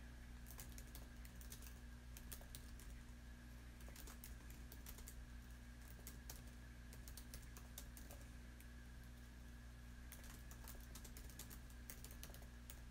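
Faint typing on a computer keyboard, key clicks coming in short irregular bursts, over a steady low hum.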